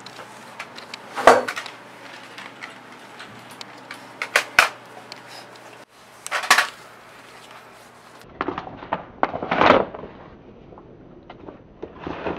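Cloth rustling and handling noise from a close scuffle, with a few short, sharp knocks and rubs as a person is pinned and patted down.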